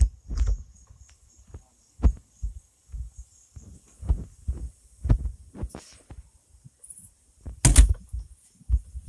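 A dozen or so irregular low thumps and bumps at uneven spacing, the loudest a little before the end.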